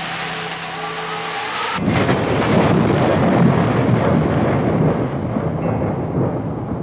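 Held low musical tones, joined about two seconds in by a loud, dense rumbling noise that lasts several seconds and stops near the end.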